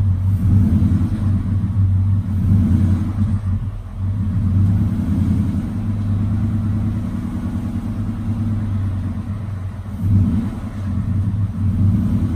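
2018 Ford F-150's 5.0 V8 running with a rapid metallic tap-tap-tap rattle, the level swelling about ten seconds in. The owner takes the tick for failing cam phasers caused by internal engine damage, the 5.0's known "typewriter tick".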